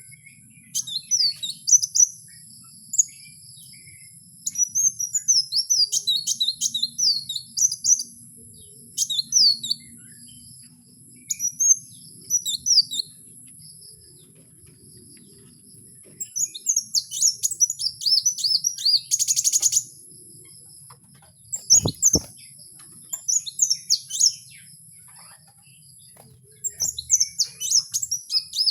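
A kowul bird singing: phrases of rapid high chirps and twitters, each a second or a few seconds long, repeated with pauses of a few seconds. A steady thin high whine runs underneath, and there is one sharp click about 22 seconds in.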